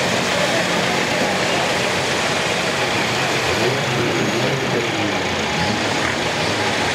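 Off-road buggy's engine running steadily while the buggy is stuck in deep mud and hitched to a tow rope.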